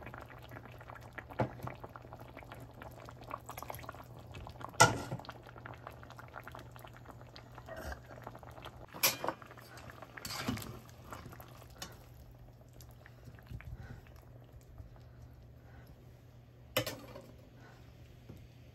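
Drumstick curry with tamarind water bubbling as it boils in a pot, with a handful of sharp knocks of a utensil against the pot, the loudest about five seconds in.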